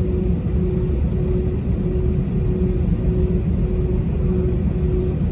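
Steady low rumble inside the cabin of an Airbus A320-232 with its IAE V2500 engines running, and a humming tone that pulses on and off about one and a half times a second.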